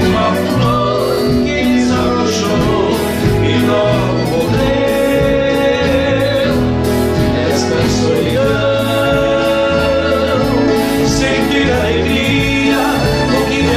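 A small band of acoustic guitars, accordion, electric bass, keyboards and light percussion playing a slow romantic song, with men's voices singing the melody over a steadily pulsing bass line.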